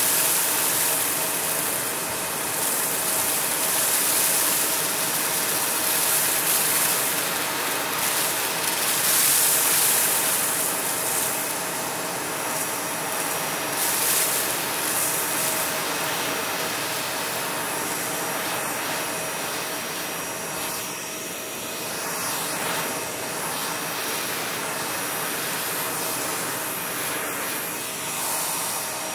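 Vacuum cleaner running with a steady whine as its nozzle sucks up loose plastic diamond-painting drills from carpet, the drills rattling and crackling up the hose, most busily in the first half.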